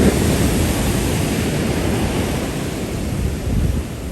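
Wind blowing across the microphone, rumbling, with surf breaking behind it.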